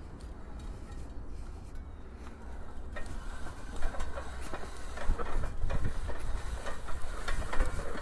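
Windone K20 fat-tyre electric bike riding over a rough dirt trail: a steady low rumble, then from about three seconds in an irregular run of knocks and rattles as the bike goes over bumps.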